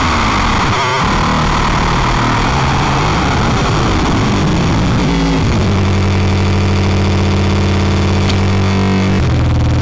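Improvised electronic score: a dense, noisy texture gives way about halfway through to a steady low drone, which shifts pitch near the end.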